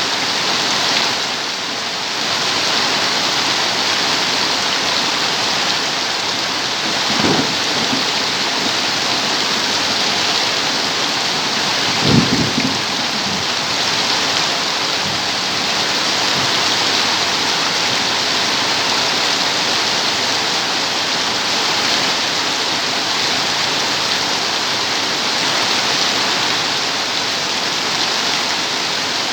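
Steady rain falling, with two short low rumbles of thunder about seven and twelve seconds in, the second one louder.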